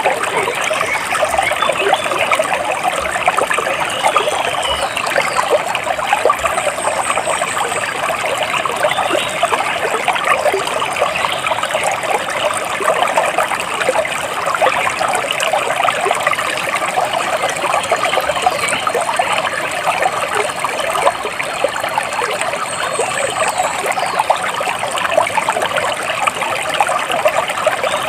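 Water splashing and trickling steadily over stones, like a small stream, with a bird chirping faintly and high above it a couple of times.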